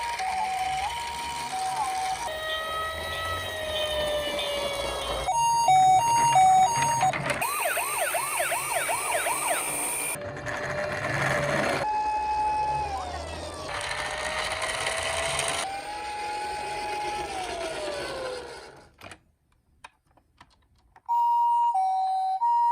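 A series of emergency-vehicle siren sounds from toy minicars, switching pattern every few seconds. There is a two-tone high-low siren at the start and again near the end, a rapid up-and-down yelp in the middle, and slower falling tones in between. The sound breaks off briefly about nineteen seconds in.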